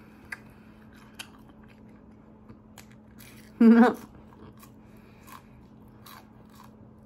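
Close-up mouth sounds of biting and chewing a breaded chicken McNugget: scattered wet clicks and soft crunches. About three and a half seconds in comes a brief vocal sound from the eater, the loudest moment.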